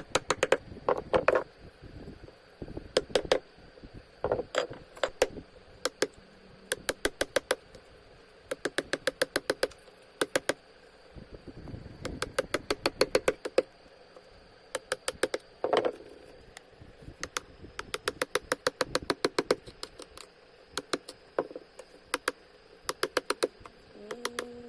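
Rapid light sharp taps on wood in short bursts of several strokes each, about eight to ten a second, repeating with short pauses between bursts.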